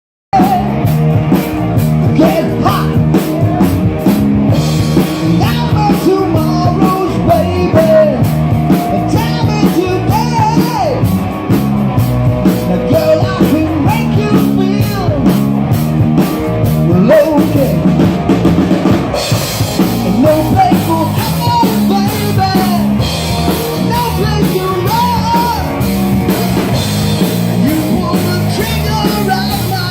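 Rock band playing loudly: drum kit beating steadily under guitars and a singing voice, starting abruptly just after the start.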